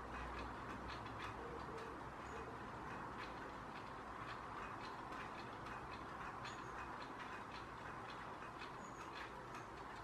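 Small birds at a fat-ball feeder, most likely long-tailed tits feeding: irregular quick ticks and clicks, several a second, with a few brief, very high, thin notes.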